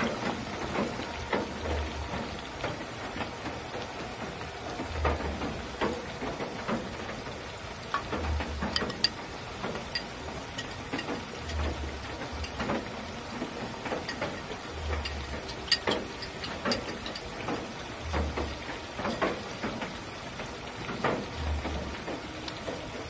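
Banana slices deep-frying in hot oil in a wok, the oil sizzling with a steady crackle of small pops. The slices are browning, close to done.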